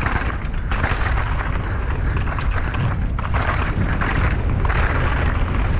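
Downhill mountain bike riding fast over a rocky dirt trail: tyres on dirt and stone and the bike rattling with many quick knocks over the bumps, over a steady rumble of wind on the microphone.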